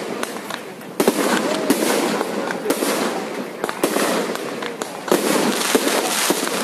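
Aerial firework shells bursting overhead: sharp bangs about once a second, with dense crackling between them.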